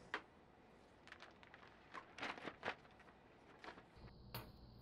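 Near silence with a few faint, scattered rustles and taps from a thin plastic table-covering sheet being handled on a cutting mat. A faint low hum and a thin high tone come in about four seconds in.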